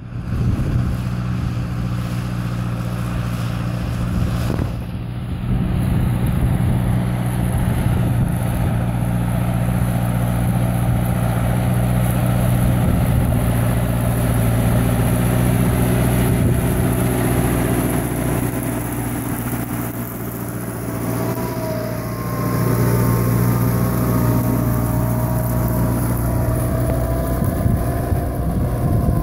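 Fendt 412 tractor's diesel engine running steadily under load, pulling a square plough through the soil.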